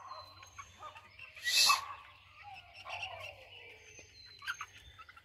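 Backyard animal noise: one short, loud animal call about one and a half seconds in, then a quieter falling call, with faint high chirps around them.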